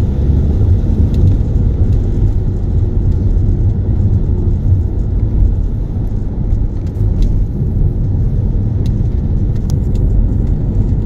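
Steady low rumble of a car driving on a wet road, heard from inside the cabin, with a few faint clicks.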